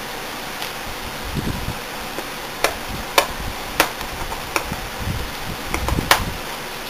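Hands opening a shrink-wrapped cardboard retail box: about half a dozen sharp separate clicks and snaps of plastic wrap and card, with soft handling thumps between them.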